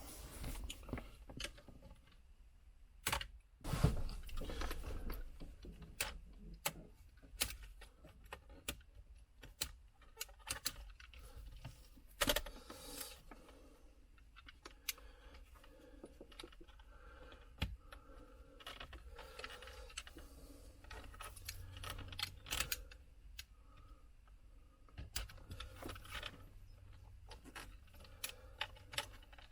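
Scattered sharp clicks, knocks and light rattles of hand tools and small parts being handled, at an irregular pace, loudest a few seconds in.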